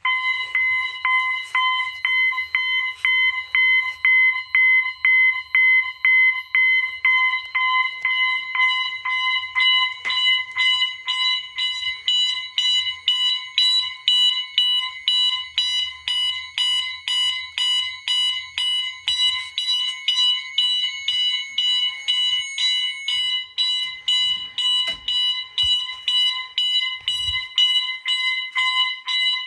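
Electronic fire alarm horns, a Wheelock MT and a System Sensor MASS, sounding in march-time coding on the high tone: a loud, steady pitched tone pulsing about twice a second. The pulsing is the alarm from a manually pulled FCI pull station.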